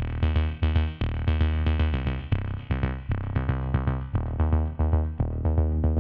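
Electronic background music with a steady beat and a deep bass line.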